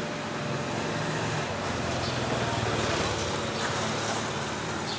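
Steady background rumble and hiss with a low hum, with a few faint, very short high-pitched sounds over it.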